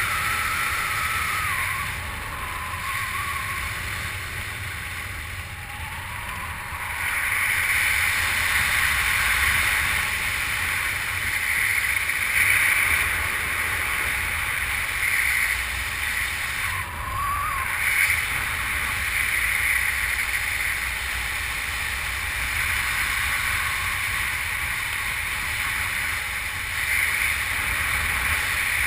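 Wind rushing over the camera microphone during parachute canopy flight, swelling and easing in gusts, with a few faint short whistling glides.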